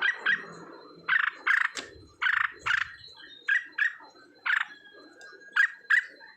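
An animal giving short, sharp calls again and again, about a dozen, several of them in quick pairs.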